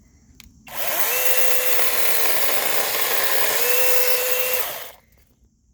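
Battery-powered 6-inch handheld mini chainsaw running for about four seconds, starting about a second in. The motor's whine sags in the middle as the chain cuts through a branch, then rises again just before it stops.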